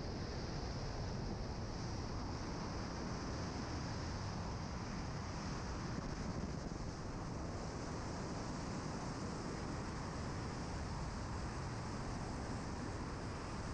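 Steady rush of freefall wind across a skydiving camera's microphone.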